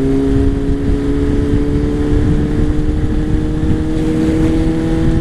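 Inline-four engine of a 2013 Honda CBR600F running under way through a Scorpion Serket Taper exhaust. Its steady note climbs slowly as the bike gains speed, over low wind rush.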